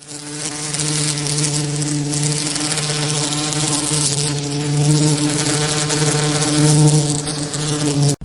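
A flying insect buzzing: one steady, low drone that swells and dips a little in loudness, starting and stopping abruptly.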